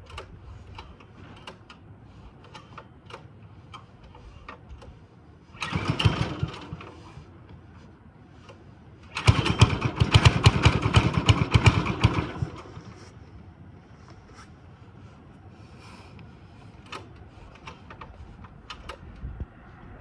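Diesel engine on a David Bradley walk-behind tractor being cold-started: a short burst of cranking about six seconds in, then, a few seconds later, it fires and runs with rapid, uneven firing pulses for about three seconds before stopping.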